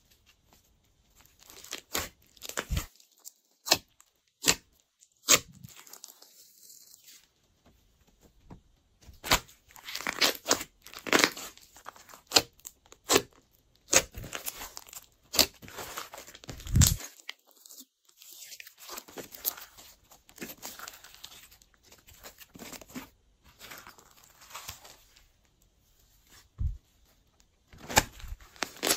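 Glossy slime being kneaded, stretched and pressed by hand: irregular sticky crackles and small pops of trapped air, with one heavier low thump about halfway through.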